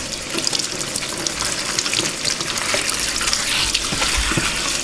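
Tap water running in a steady stream and splashing over a bunch of leafy greens held under it to rinse them.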